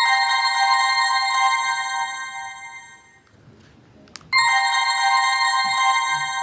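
A BlackBerry Curve 8520 ringtone: a bright chord of steady chiming tones that starts sharply and fades out over about three seconds. It sounds again about four seconds in.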